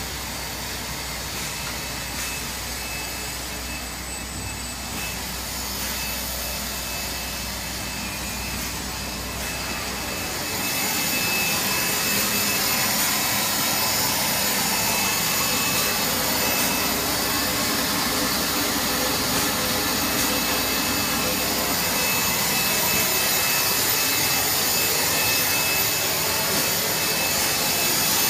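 Air bubble film blowing machine running: a steady, noisy mechanical drone with a faint high whine. About ten seconds in it gets louder and hissier and a low hum drops away.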